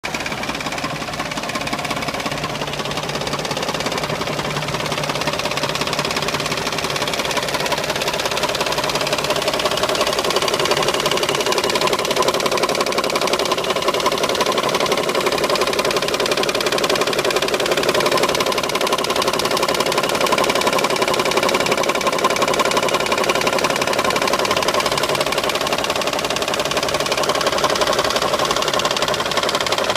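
Mazda Xedos 6 engine running steadily with a fast, continuous knocking from the engine. The owner suspects the camshaft gears and the hydraulic chain tensioner.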